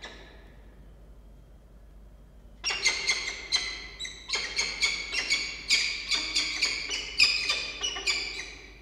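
Adult peregrine falcons calling in a rapid run of short, loud chipping calls, about four a second, starting about two and a half seconds in and stopping near the end. The calls come as one adult brings prey across the nest box to its brooding mate.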